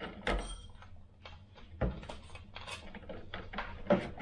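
Light knocks and clicks of model aircraft tail parts being handled and test-fitted. The three loudest come about a third of a second, two seconds and four seconds in, with small taps between.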